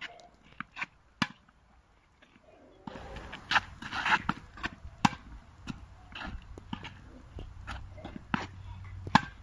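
Tennis ball struck by rackets and bouncing on a hard court during a rally: a string of sharp, separate pops at uneven intervals, the loudest about five seconds in and again near the end.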